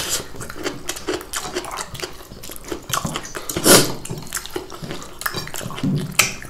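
Close-miked eating sounds: chewing, lip smacks and fingers squishing rice on plates, as a string of short, irregular clicks and smacks, with one louder sound about three and a half seconds in.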